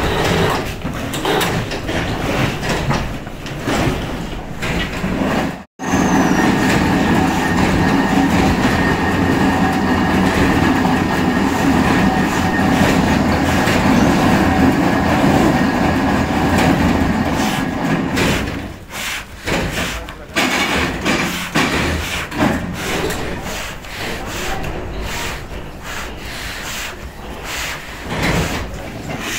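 Plywood factory machinery running with a dense, rattling mechanical noise. The sound drops out for an instant about six seconds in, then runs loud and steady until about eighteen seconds, after which it turns choppier.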